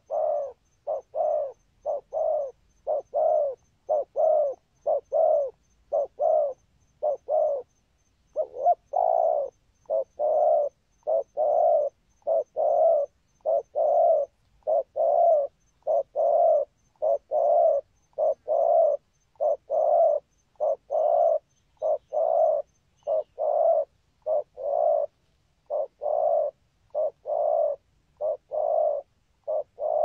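Spotted dove cooing: a long, unbroken series of short, low coos, about two a second and loosely paired, with one brief pause about eight seconds in.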